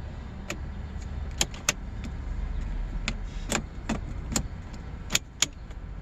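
About a dozen sharp plastic clicks at irregular intervals as a newly programmed Mercedes smart key is handled at the car's ignition slot, over a low steady hum.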